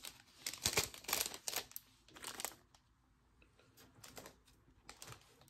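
Baseball cards and crinkly pack wrappers being handled and shifted into piles on a table: a quick run of crinkling rustles and light taps over the first couple of seconds, then a few scattered soft clicks.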